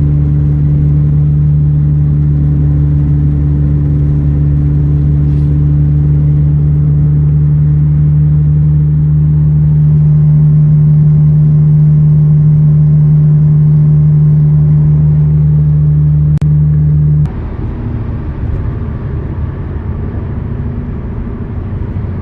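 Loud, steady hum of a worn wheel bearing on an Audi with the car driving, holding one constant pitch; the owner takes it for the left rear bearing. About 17 seconds in it cuts off abruptly to quieter, rougher road noise with no hum.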